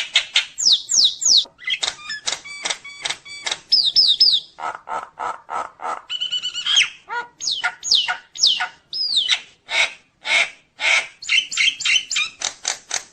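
A jalak nias (myna/starling) singing hard: a fast, unbroken string of varied phrases, with falling whistles, quick repeated clipped notes and harsh rasping calls.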